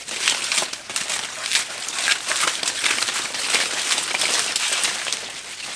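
Yucca leaves being stripped off the trunk by hand: a continuous run of crackling, tearing rustles.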